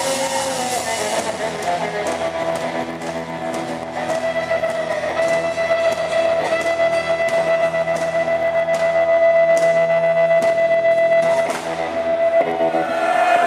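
Live rock band playing an instrumental passage: electric guitars over drums, with one long held high note through the middle.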